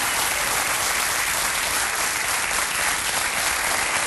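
Audience applauding with steady, dense clapping, the welcome for a guest who has just been announced.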